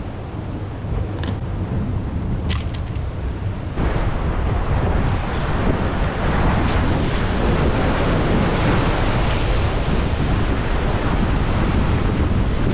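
Wind buffeting the microphone, with a few sharp clicks in the first three seconds; from about four seconds in, sea waves break and wash over the rocks, loud and continuous, with wind still on the microphone.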